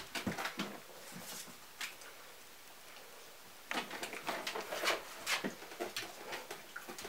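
Basenji puppy's claws scrabbling and tapping on a cardboard box and newspaper: bursts of quick clicks and scratches in the first second and again from nearly four seconds in, with a quiet gap between.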